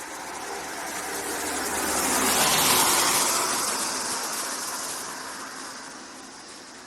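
A motor vehicle passing by in street traffic. Its noise builds, is loudest nearly three seconds in, then fades away.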